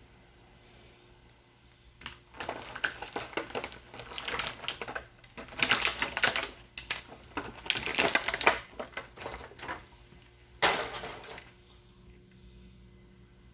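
Plastic action-figure packaging being handled and opened, crinkling and clicking in rapid runs from about two seconds in, with one last short burst near the end.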